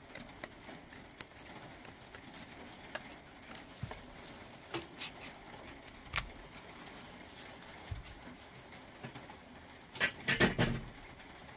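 Light clicks and taps of battery cells and small tools being handled on a workbench, with a short clatter of louder hard knocks near the end.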